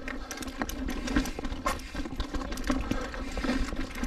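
Mountain bike riding over a rocky trail: tyres and frame knocking and rattling in quick, irregular clicks, over a low rumble.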